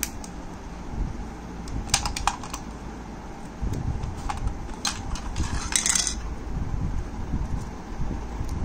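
Sharp plastic clicks from handling a wireless mouse as it is turned over and its underside opened to take out the USB receiver: a few clicks about two seconds in, then a quick rattle of clicks near six seconds, over a low background rumble.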